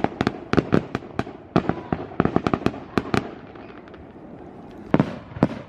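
Fireworks going off in rapid, irregular sharp cracks, some in quick clusters. A short lull comes about two thirds through, then a couple more cracks near the end.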